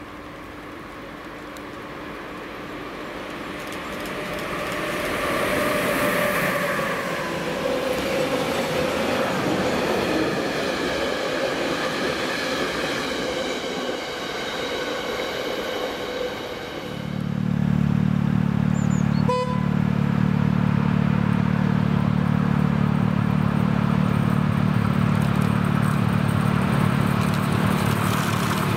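Freight train running past on electrified main line track: the rumble of the wagons over the rails swells and then fades, with faint ringing tones mixed in. About halfway through it changes suddenly to a steady low rumble as another electric locomotive approaches hauling a container train.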